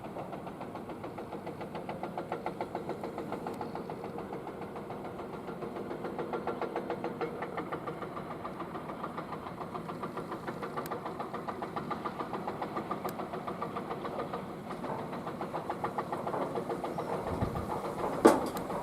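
Excavator's diesel engine running with a rapid, even knocking pulse. A loud sharp bang comes near the end.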